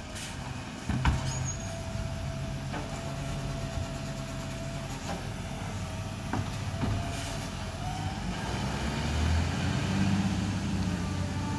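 Side-loader garbage truck's engine running, with a sharp knock about a second in and a few fainter clicks while a steady whine goes on, typical of the hydraulic lifting arm emptying a bin. Near the end the engine note rises and gets louder as the truck pulls away.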